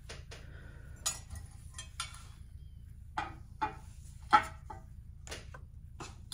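Ceramic pieces clinking and knocking as they are handled and set down: about eight short taps, some with a brief ring, the loudest about four seconds in, over a faint low hum.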